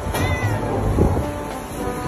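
Domestic cat giving one short meow just after the start, while a golden retriever's paw presses down on its head, over background music.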